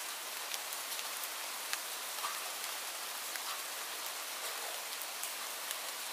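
Steady rain: an even hiss of falling rain with individual drops ticking sharply, roughly two a second.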